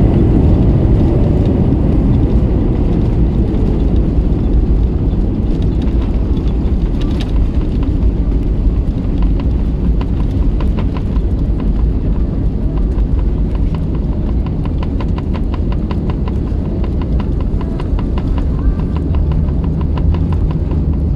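Cabin rumble of an Airbus A321neo rolling along the ground after touchdown, with an engine whine falling away in the first few seconds. From about halfway in, a steady run of light thumps comes at roughly three a second as the wheels roll over the runway surface.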